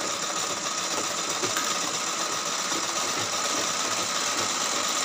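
Pico sewing machine running steadily, stitching a rolled picot edge along red cloth.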